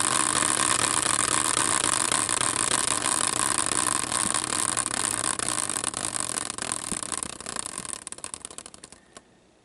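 Homemade prize wheel (a caster wheel on a wooden stand) spinning down after a hand spin, with its pointer rubbing against the rim in rapid clicks and a whirring rattle. The clicks slow and grow sparse from about seven seconds in and stop just before the end as the wheel comes to rest.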